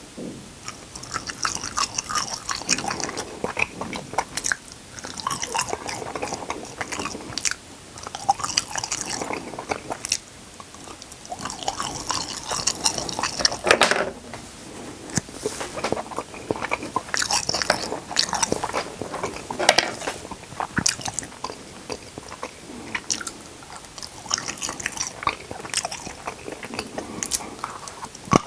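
Close-miked eating: chewing and biting into food, with many short sharp crackles and clicks coming irregularly.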